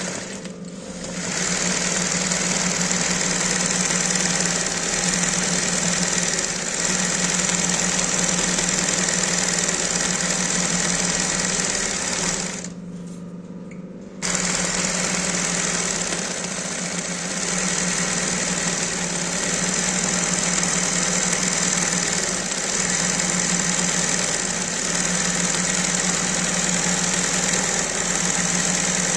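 Industrial zigzag embroidery sewing machine running fast, the needle stitching satin-fill embroidery through hooped cotton, over a steady motor hum. It stops for about a second and a half near the middle, then starts stitching again.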